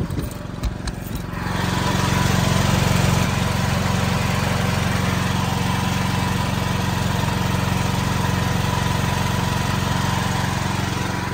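Automatic standby generator's engine running steadily under load during a power outage, a steady low hum that grows louder about a second and a half in and then holds level.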